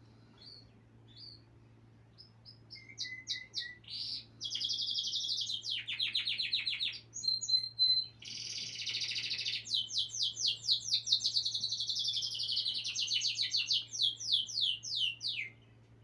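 A small songbird singing a long, varied song. It starts with a few scattered chirps, then runs into fast trills and rapid strings of notes, and ends with a series of quick falling notes before it stops.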